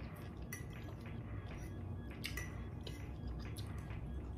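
A metal fork clinking and scraping against a plate as food is picked up: about half a dozen light, irregular clicks over a low steady hum.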